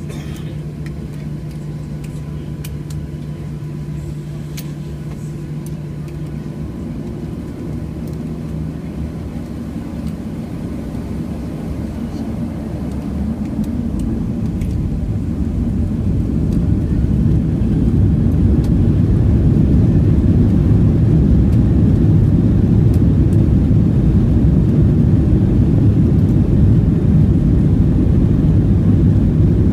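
Boeing 737 jet engines heard from a cabin window seat over the wing, spooling up to takeoff power. A steady low hum for the first several seconds swells over about ten seconds into a loud, steady rush as the airliner accelerates down the runway.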